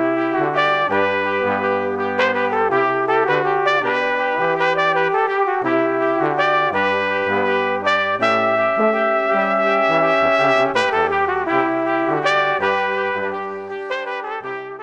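Brass quartet music, trumpets and trombones playing held chords that shift every second or so, fading out near the end.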